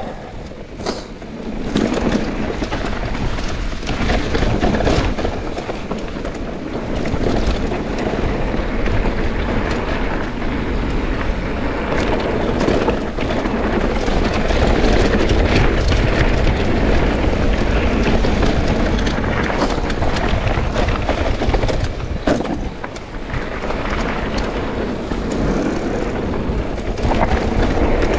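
Mountain bike riding fast down a dirt trail: continuous rumble of the tyres on the ground with the bike rattling, and many sharp knocks from bumps.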